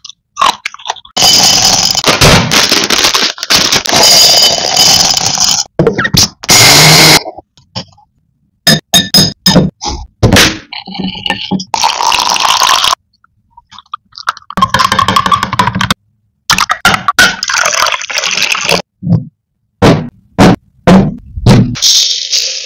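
A run of short food-preparation sounds separated by abrupt cuts, each stretch loud and noisy with scattered knocks and scrapes. About twelve seconds in, water is poured into a glass; near the end, dry grains are poured into a steel pot.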